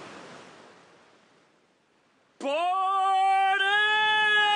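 A soft rushing noise fades away, then about two and a half seconds in a singing voice swoops up into one long held note: the opening of a song.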